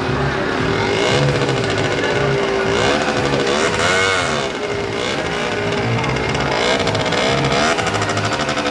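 Car engine running as the car creeps along at walking pace, its pitch rising and falling a few times with the throttle.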